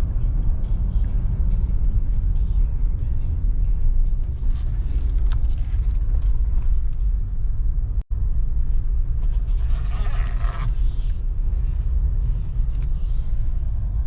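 Steady low rumble of a 2018 Jeep Wrangler JL being driven, engine and road noise heard from inside the cabin. The sound cuts out for an instant about halfway through.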